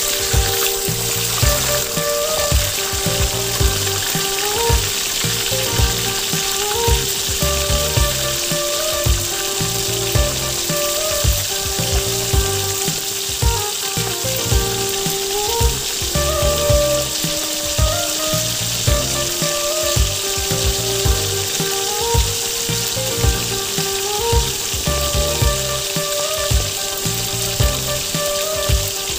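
Whole short mackerel deep-frying in oil in a wok: a steady, vigorous sizzle and crackle of bubbling oil. Background music with a regular beat plays along with it.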